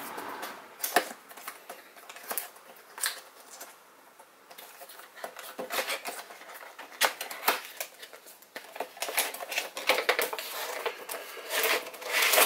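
Hands opening a cardboard product box: fingers pick at its sticker seal and the inner packaging slides out, giving a run of irregular clicks, taps and scrapes on cardboard and plastic.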